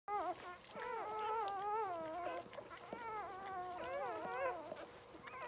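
Newborn English setter puppies crying: high-pitched, wavering squeals that rise and fall almost without a break, with short lulls about halfway and near the end.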